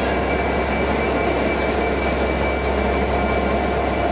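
Class 67 diesel locomotive idling at a standstill: its two-stroke V12 diesel engine gives a steady low drone, with a constant thin whine above it.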